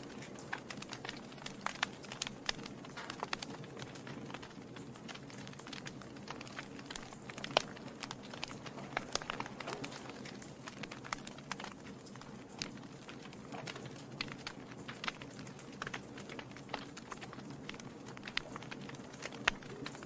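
Wood fire in a fireplace crackling, with frequent irregular pops and snaps over a soft steady rush of flame. One sharper pop stands out about seven and a half seconds in.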